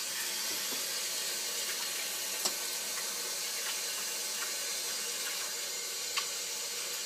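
Water tap running steadily into a sink as sticky dough is washed off hands, with two brief sharp knocks or splashes, about two and a half seconds in and again near the end.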